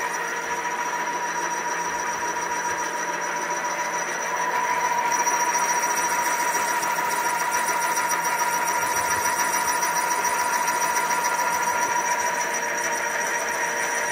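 Milling machine spindle running a Wohlhaupter UPA4 boring and facing head at speed, a steady mechanical whine with a constant clear tone. It grows louder about four and a half seconds in and stops abruptly at the very end.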